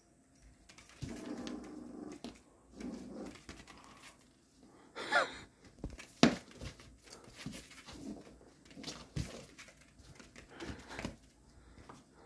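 Puppies play-fighting: low growls in the first few seconds, then a high gliding whine about five seconds in and a sharp yelp just after, followed by short scattered growls and yips.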